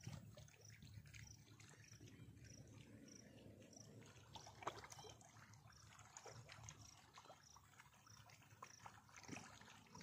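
Near silence: faint outdoor background with a low hum and scattered small ticks, and a faint high-pitched note repeating a little under twice a second.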